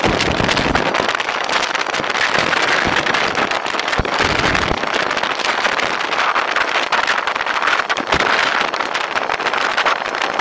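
Wind rushing over the microphone and road noise from riding a personal electric vehicle, with many small clicks and knocks throughout and heavier low gusts of buffeting near the start.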